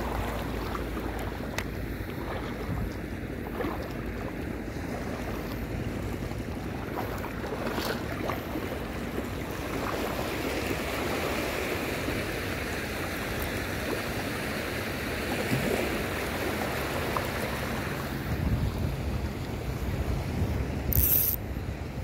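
Small waves washing and breaking on a sandy shoreline, with wind buffeting the microphone. There is a short high hiss near the end.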